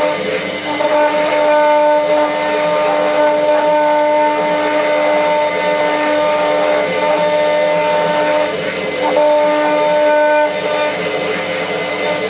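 CNC router spindle running with a steady whine while a small end mill cuts engraved lettering into a brass plate, with a hiss of cutting noise that shifts as the tool moves through the letters.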